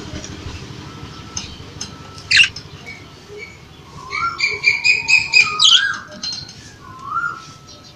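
Budgerigars chirping in their cage, with a loud sharp squawk about two and a half seconds in and a quick run of repeated chattering notes a little after the middle.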